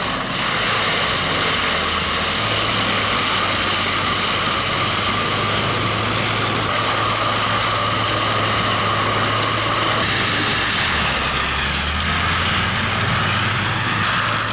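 Heavy forestry mulcher's diesel engine running hard, a steady drone with a high whine from the cutting head. The engine note sags briefly about ten seconds in, as under load, then recovers.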